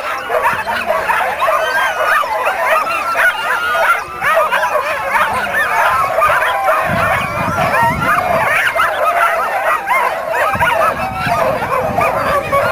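Many harnessed sled dogs barking and yelping at once, a dense, unbroken chorus of overlapping high calls from teams held at the start of a race.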